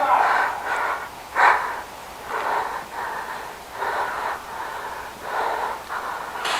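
Heavy, close breathing of a person, one breath about every second.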